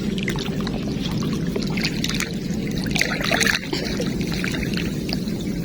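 Water running and splashing over a steady low rumble, with the loudest splashing about three seconds in.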